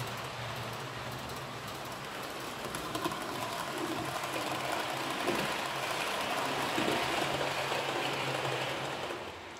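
H0-scale model train running over the track, a steady hum of wheels on rails and motor that grows louder as the coaches pass close by, then drops off suddenly near the end.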